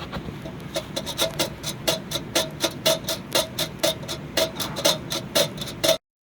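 BMW 520d's four-cylinder diesel engine running with a sharp, rhythmic rattling clatter, about three to four clicks a second, growing louder about a second in. This is the ticking rattle the shop traces to a failing flywheel. The sound cuts off abruptly near the end.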